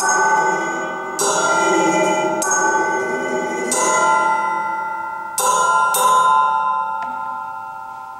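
Metal percussion sculpture of bent metal rods struck with beaters, each stroke ringing with several sustained tones that die away slowly. There are about six strokes, a second or so apart, with a faint extra tap near the end.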